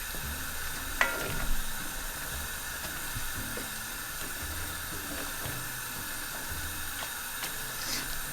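A pot of curried duck in boiling water simmering on the stove with a steady hiss, and two sharp clinks near the start.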